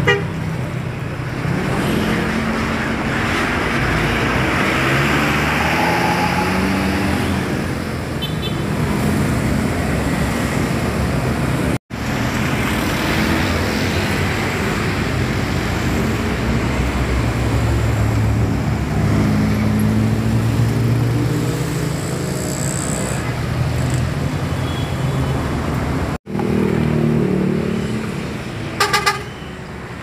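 Buses sounding multi-tone Basuri 'telolet' horns, held tones stepping up and down in pitch like a tune, over bus engine and traffic noise. The sound cuts out abruptly twice, about a third of the way in and near the end, where clips are joined.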